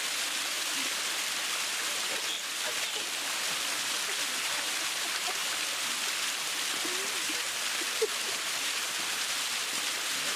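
Steady rushing of a small waterfall, an even hiss of falling water with no breaks. A single sharp click comes about eight seconds in.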